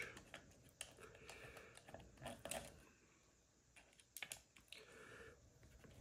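Faint, scattered clicks and scrapes of a small T10 Torx screwdriver turning screws out of the plastic housing of a Syrp Genie II Linear.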